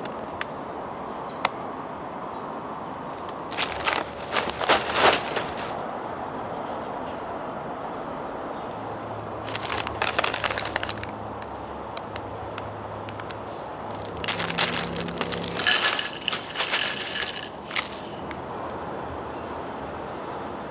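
Plastic and foil snack bags crinkling as they are handled and opened, in three bursts of crackling over a steady background hiss.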